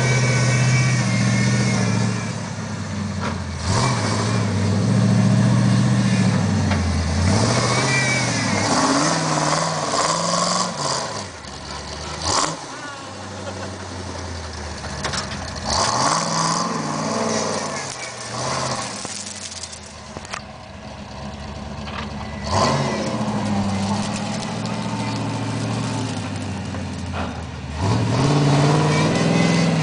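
V8 engine of a modified Jeep off-roader revving up and down as it climbs over dirt mounds, its pitch rising and falling again and again. It is loudest at the start and again near the end, quieter in the middle.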